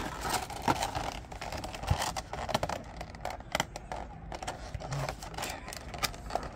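Clear plastic blister packaging of a toy being handled, crinkling and crackling in irregular clicks.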